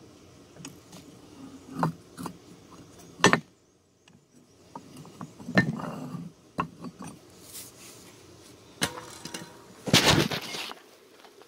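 Hard knocks and clatter from a square casting mold being tipped with a metal-handled tool and set back down on concrete blocks, as the freshly cast metal skull comes out onto the concrete. Five or six sharp knocks a second or two apart, then a longer scraping rush near the end.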